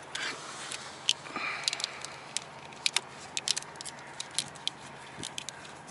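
A nylon zip tie being fed through and pulled tight around a bundle of wires: a scattering of sharp little plastic clicks, irregular and in quick clusters.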